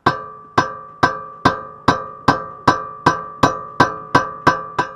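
Hammer tapping a 30 mm socket used as a driver to press a needle roller bearing into its seat on a Mitsubishi Pajero II drive shaft: thirteen steady, evenly spaced metallic blows, about two and a half a second, each ringing briefly.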